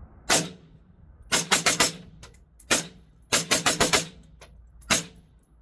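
Suppressed firearm firing supersonic rounds: a single shot, then a quick string of about five, another single, a second string of about five and a last shot, roughly a dozen reports in all.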